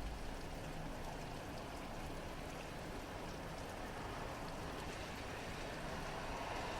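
Steady rain falling, with the hiss of a car's tyres on the wet road building toward the end. A short low thump right at the start.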